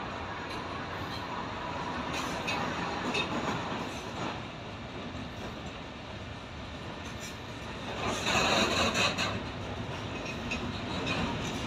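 Intermodal freight train of flat wagons loaded with swap bodies and containers rolling past, wheels knocking over rail joints. A louder, harsher stretch comes about eight seconds in.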